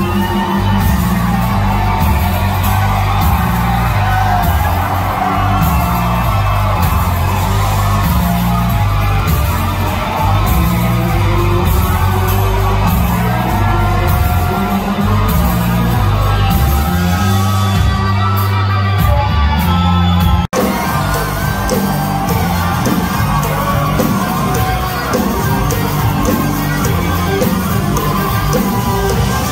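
Southern rock band playing loud live in a hall: a stepping bass line, electric guitars and pounding drums, with shouts and whoops over it. The sound drops out for an instant about twenty seconds in.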